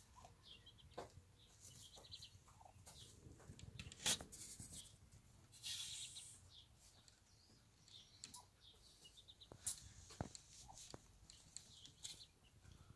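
Quiet peeping of bantam chicks and soft low clucks from the mother hen brooding them. Hay rustles about six seconds in, and there is a sharp tap about four seconds in.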